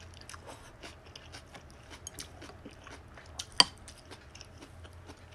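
Close-miked chewing of a mouthful of greens and noodles: a run of small wet mouth clicks, with one sharper click about three and a half seconds in.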